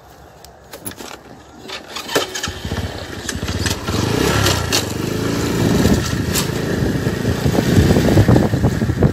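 An engine running close by, coming in about two and a half seconds in and growing louder, its pitch wavering; a few faint clicks before it.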